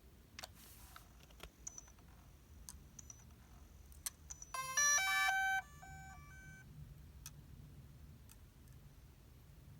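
A few light clicks, then, about halfway through, a DJI Mavic Pro powering on: its electronic startup tune, a quick run of stepped beeping notes that is the loudest thing here, trailing off in a few quieter notes.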